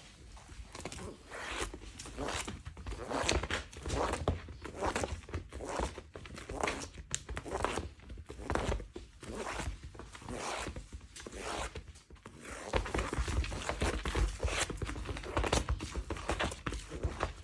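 A cat playing on a tatami mat: repeated quick scraping and rustling strokes on the woven rush, with heavier low thuds from about two-thirds of the way in.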